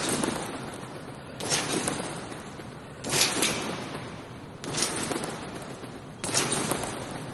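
Trampoline being bounced on in a steady rhythm: about five landings on the mat, one roughly every second and a half, each a sudden hit that fades out noisily before the next.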